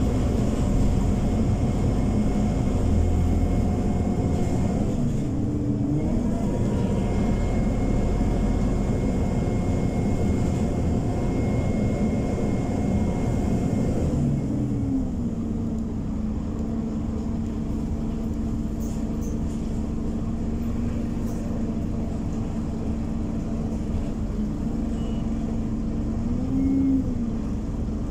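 Diesel engine of a Scania OmniCity 12 city bus, heard from inside the passenger cabin. It runs under way with a faint high whine, drops to a steady idle about halfway through, and revs up again near the end.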